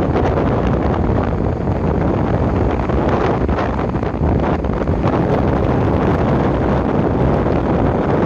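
Strong wind buffeting the microphone in a loud, steady rumble, over shallow waves washing onto the beach.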